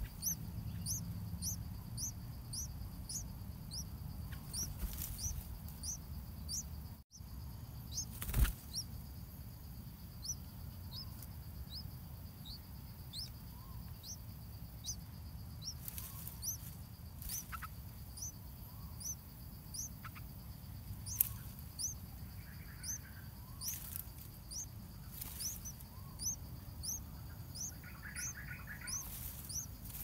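Bulbul nestlings begging with thin, high-pitched peeps, repeated steadily about two to three times a second. A few rustles of leaves and a soft thump, loudest about eight seconds in.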